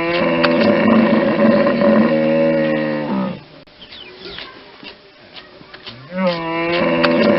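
Hippopotamus calling: two long, low pitched calls, each opening with a rising slide. The first lasts about three seconds; the second begins about six seconds in and is still going at the end.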